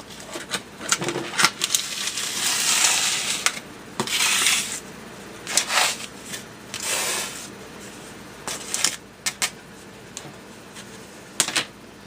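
Kitchen handling noises: a string of light clinks and knocks of metal and crockery, with several short scraping, hissing rubs between them, typical of wiping up a spill around a stovetop.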